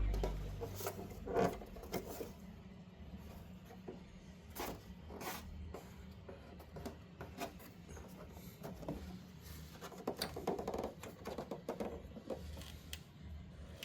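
Faint handling noises: scattered light clicks and taps, irregular and a few per second, over a low steady hum.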